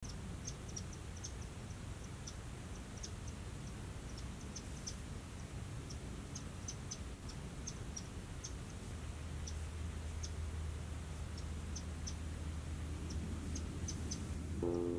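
Crickets giving short, high chirps at irregular intervals over a low, steady background rumble. Just before the end, background music with held tones comes in.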